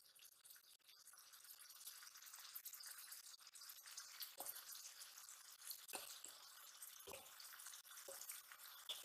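Faint sizzle of hot oil in a metal karahi as shredded cabbage is tipped in from a steel bowl, with four soft knocks in the second half.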